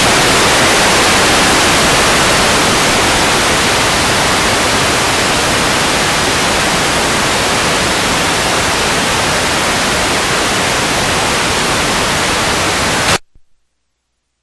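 Loud, steady television static hiss accompanying on-screen video snow. It cuts off abruptly near the end.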